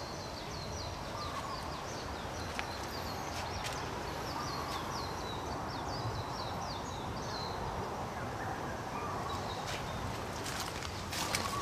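Birds singing: runs of quick high chirps repeated over and over, with a lower warbling call every few seconds, over a steady background hiss. A few crunching footsteps on leaf litter near the end.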